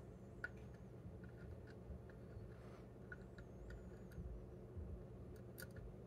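Faint, scattered light clicks of metal tweezers picking up and setting down small lock pins in a wooden pinning tray, a few separate ticks with a small cluster near the end, over a low steady hum.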